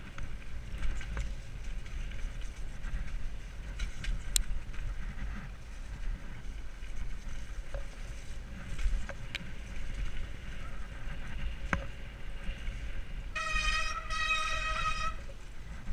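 Mountain bike ridden fast down a dirt forest trail, heard from a helmet camera: a steady low rumble of wind and tyres on the dirt, with scattered sharp knocks and rattles from the bike. Near the end a high-pitched whine from the bike lasts under two seconds.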